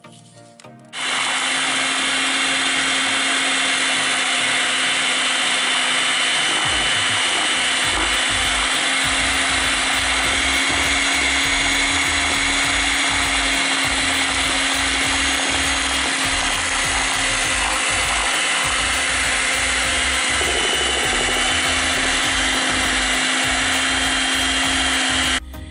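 Electric hand mixer running at a steady speed, its twin beaters whisking thick chocolate cake batter in a steel bowl. The motor switches on about a second in with a steady hum and cuts off just before the end.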